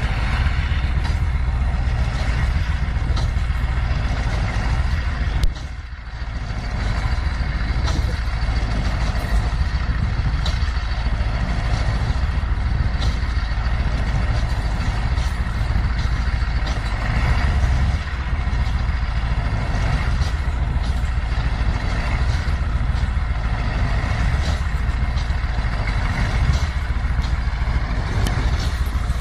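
Heavy Russian truck's diesel engine running hard under load as it pushes through deep snow, a steady deep rumble that briefly eases off about six seconds in.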